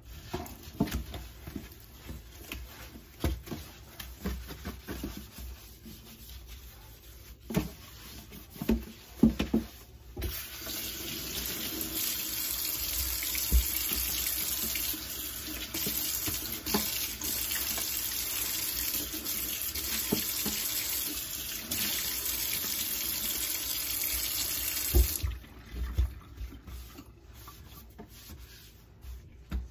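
A sponge scrubbing a kitchen sink, with scattered rubbing and light knocks; about ten seconds in the tap opens and a steady stream of water runs into the sink for about fifteen seconds, then shuts off suddenly, followed by a few soft handling knocks.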